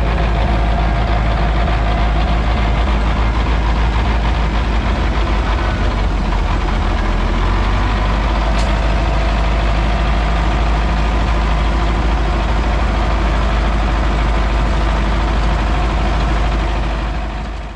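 MTZ tractor's diesel engine running steadily, heard from inside the cab as a loud, even low rumble. A single brief click comes about eight and a half seconds in, and the sound fades out at the very end.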